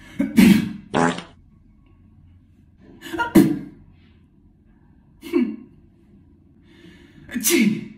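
A man doing exaggerated mock sneezes: four sneezes a couple of seconds apart, the first in two parts, with quiet breaths between them.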